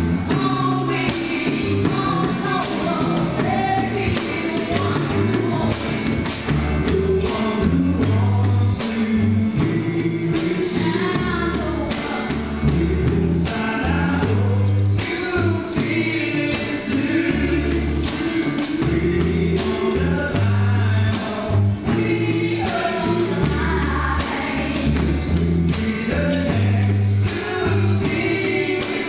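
Live band playing a song: several men singing together into microphones over strummed acoustic guitars, with a repeating low bass line and steady percussion hits.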